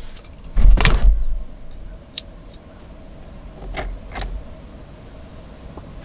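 Hammer blows on a punch, driving a small retaining pin out of a Subaru STI shift lever: two heavy knocks with a deep thud about a second in, then a sharp click and two lighter taps later on.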